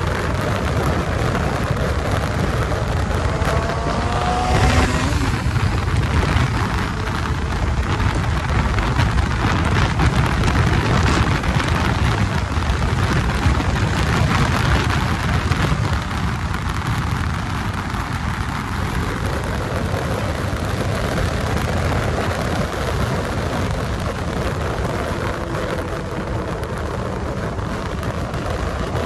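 Wind rushing and buffeting over the microphone of a Kawasaki Ninja 600 sport bike at highway speed, with the engine running underneath. A brief rising whine about four seconds in.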